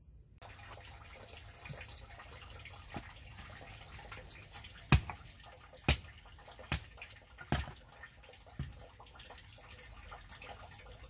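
Axe splitting kindling wood: a run of sharp chopping strikes, the five loudest about a second apart in the middle, over a steady trickle of running water.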